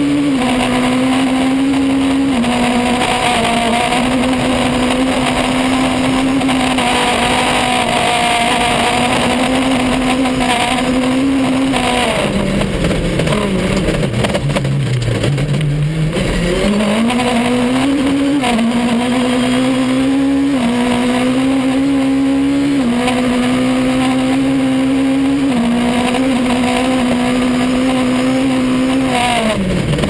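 Rally car's Honda S2000 four-cylinder engine heard from inside the cockpit, running loud and near the top of its revs on a gravel stage. About halfway through the revs fall away sharply as the car slows for a turn, then climb back up in steps through the gears, with the noise of gravel under the tyres throughout.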